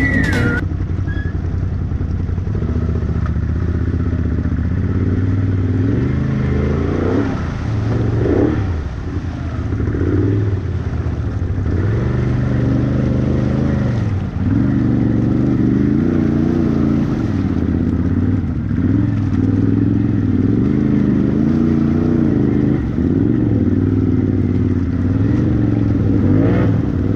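Off-road vehicle's engine running and revving on a muddy track, its pitch rising and falling again and again as the throttle is worked.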